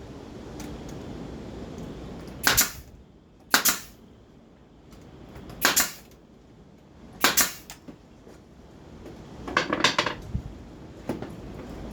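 Brad nailer firing nails into wood: four single sharp shots a second or two apart, then a quick run of several shots near the end.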